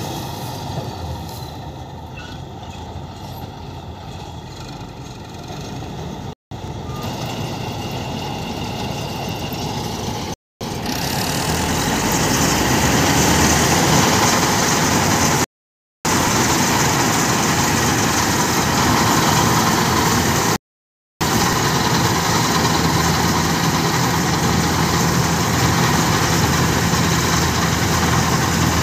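Kartar 4000 combine harvester running while it cuts and threshes standing wheat: a steady engine and machinery din that grows louder partway through. It is broken by four short silent gaps.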